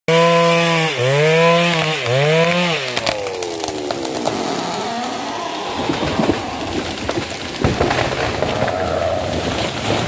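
Two-stroke chainsaw running at high revs and dipping in pitch twice, then the throttle is released and the engine winds down about three seconds in. A felled tree then comes down through branches and bamboo with cracking and snapping, and a heavy crash about three-quarters of the way in.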